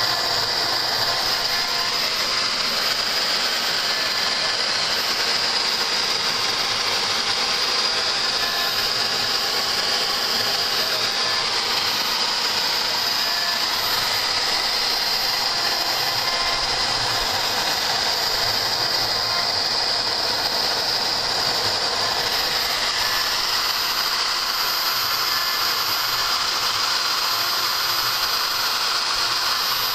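Home-built CNC machine running through a job: a steady mechanical whir with a continuous high whine.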